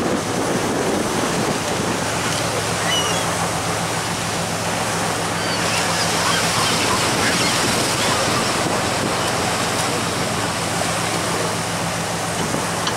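Churning wake water and wind rushing past a moving fishing boat, over a steady low hum of the boat's engine.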